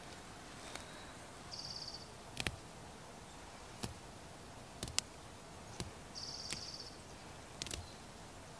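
Quiet garden background with two short, high, buzzing trills from a small creature. Scattered sharp snaps and clicks come as a cucumber and green beans are picked from the plants.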